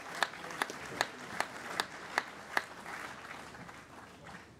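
Audience applauding, with one pair of hands close by clapping sharply and evenly, about two and a half claps a second. The close claps stop a little past halfway, and the applause dies away toward the end.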